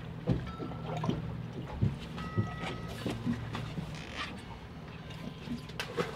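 Water lapping against a small boat's hull, with scattered light knocks and clicks. A low steady hum underneath fades out a little past halfway.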